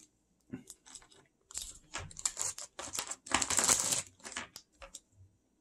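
Plastic Laffy Taffy wrappers and packaging crinkling and rustling in irregular bursts as the wrapped candies are handled and sorted, loudest about three and a half seconds in.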